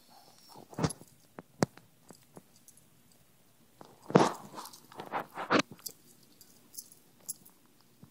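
Dog nibbling and chewing at its own itchy skin and fur: scattered short crunching, biting sounds, the loudest cluster about four to five seconds in.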